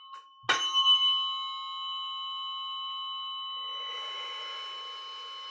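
A metal chime is struck once and rings on, a clear tone of several pitches that fades slowly. A soft hiss joins about four seconds in.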